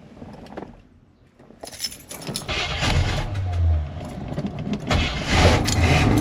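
Keys jangling in the ignition of a 1972 Chevy Nova, then the engine starting about two seconds in and running with a steady low rumble.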